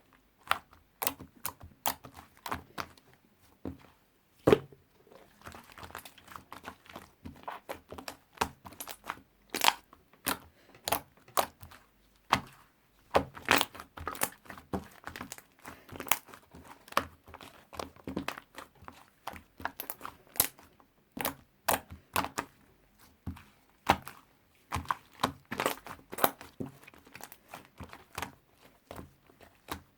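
White slime squished, stretched and poked by hand, making irregular sharp crackling clicks and pops.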